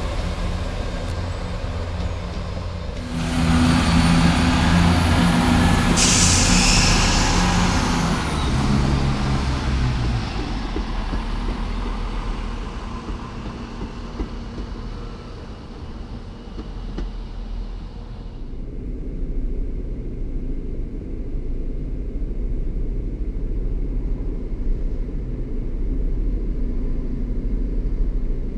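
Class 170 Turbostar diesel multiple units running past station platforms, their underfloor diesel engines throbbing with stepped changes in pitch, and a sharp air hiss about six seconds in. In the last third the sound becomes a duller, steady rumble.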